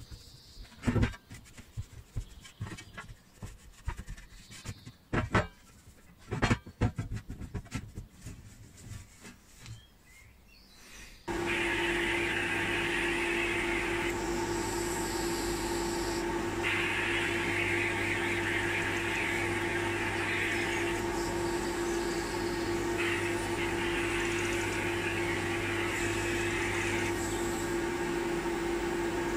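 Scattered knocks and clicks as the sheet-metal case is handled. About a third of the way in, this gives way to the steady hum of a powder coating booth's extractor fan, with repeated hissing bursts of a few seconds each from the powder coating gun's air as it sprays yellow powder.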